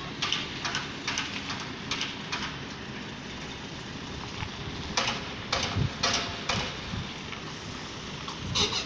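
Heavy low-loader truck convoy moving slowly, a steady engine rumble with a series of sharp clicks and knocks, several in a cluster about five to six and a half seconds in and a loud one near the end.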